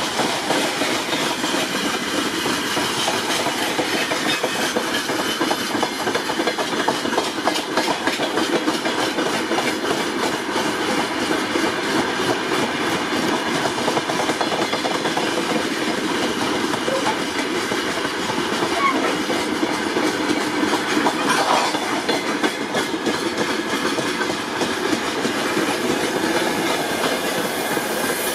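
Train rolling past, its wheels clattering steadily over the rails.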